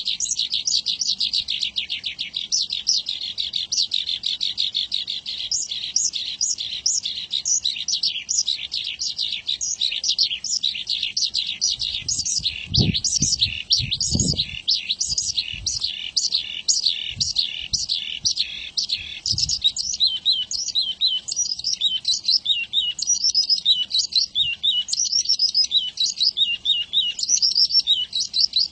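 Javan bush lark (branjangan) singing a long, unbroken song: a rapid run of high chirping notes and trills. A few soft low thumps come about halfway through.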